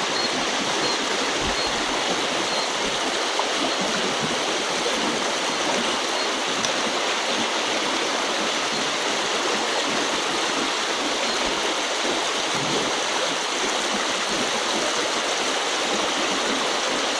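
A small, shallow river rushing steadily over a riffle.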